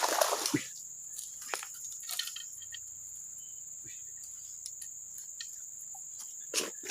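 Insects chirring in a steady, unbroken high tone, with a few brief louder noises at the start and near the end.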